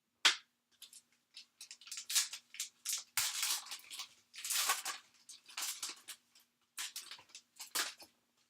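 Basketball trading cards being handled and slid past one another in the hand, a run of short scratchy swishes. A sharp snap comes just after the start.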